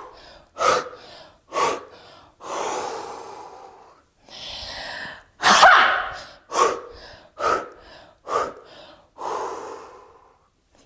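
A woman's forceful breathing: several short, sharp breaths out, then a long deep breath in, then a loud shouted "Ha!" about five and a half seconds in. Three more short breaths out and another breath in follow.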